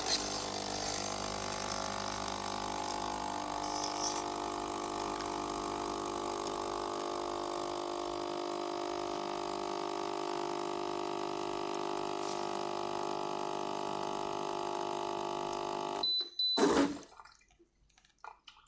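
Destino capsule espresso machine brewing a Nespresso-size capsule: its pump runs with a steady hum for about sixteen seconds. It stops with a short high beep, followed by a brief knock.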